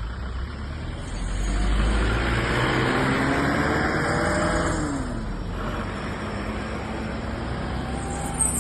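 A motor vehicle's engine running close by, growing louder about a second in, then easing off with its pitch falling after about five seconds.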